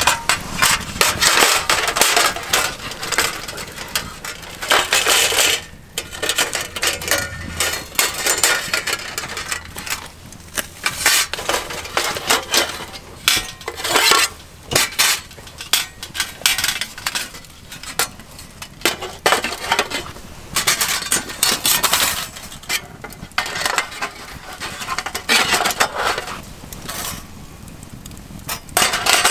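Stainless-steel panels and grate of a folding box firebox clinking and clattering as they are unfolded and fitted together on an aluminium slat table: a scatter of irregular metal knocks and clinks throughout.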